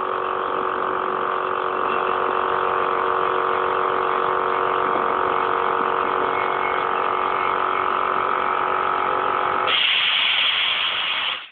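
Small electric air compressor running with a steady buzzing hum. About ten seconds in it changes to a loud hiss, then stops abruptly.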